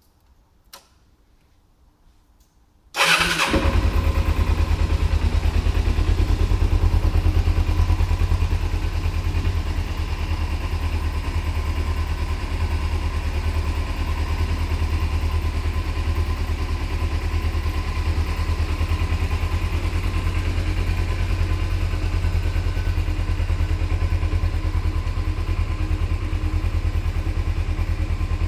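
Kawasaki ZZR250's parallel-twin engine with its stock exhaust: a click, then the engine starts about three seconds in and idles steadily, a little louder for the first few seconds before it settles.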